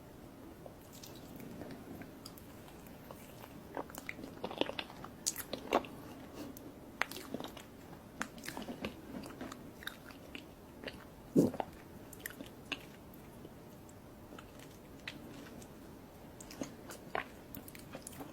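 Close-miked eating sounds: a person biting and chewing cake, with many short, sharp mouth clicks, the loudest about eleven seconds in.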